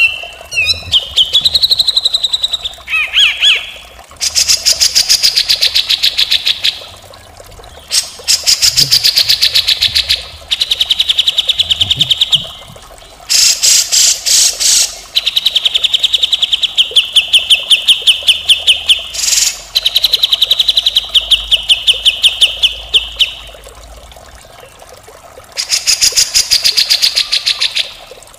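Grey-cheeked bulbul (cucak jenggot) singing harsh, rasping rattles ('mbeset kasar'): rapid buzzy trills in phrases of two to three seconds with short pauses between them, opening with a few gliding whistled notes.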